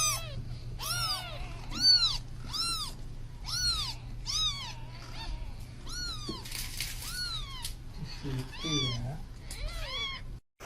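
Kitten mewing over and over in short, high-pitched calls, each rising and then falling, about one and a half a second.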